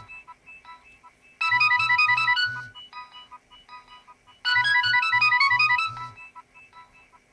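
Nokia 6820 mobile phone playing a polyphonic ringtone: a short, fast melodic phrase over a pulsing low beat, heard twice about three seconds apart, with softer trailing notes dying away between and after.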